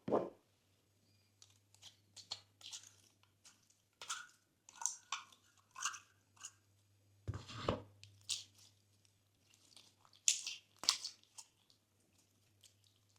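Slime being squished and kneaded by hand, giving irregular wet crackles and clicky pops. There is a sharper thump at the start and a deeper squelch about seven and a half seconds in.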